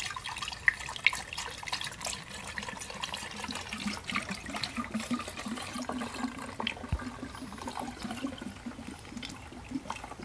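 Coolant being poured through a funnel into a Toyota Prius inverter coolant reservoir, an irregular splashing trickle as the system fills.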